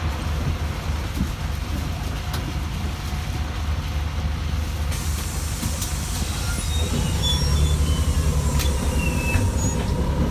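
City bus heard from inside the passenger cabin: the engine runs with a steady low rumble. About seven seconds in, the bus pulls away: the rumble grows a little louder and a whine rises in pitch, then holds steady.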